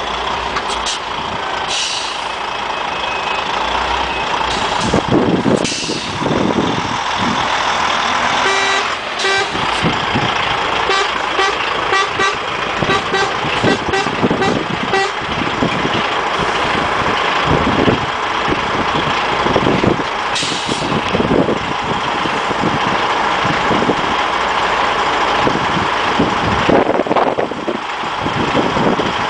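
Convoy of DAF XF truck tractors driving slowly past one after another, their diesel engines rumbling and swelling as each goes by. Short repeated horn toots come in a cluster around the middle, with brief hisses of air brakes.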